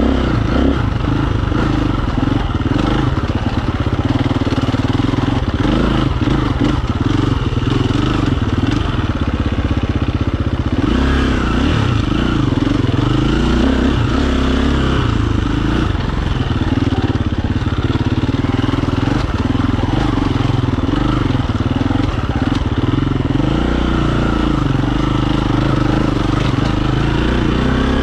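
KTM dirt bike engine running at low, uneven revs on a trail ride, its pitch wavering up and down as the throttle opens and closes, then rising as it revs up near the end.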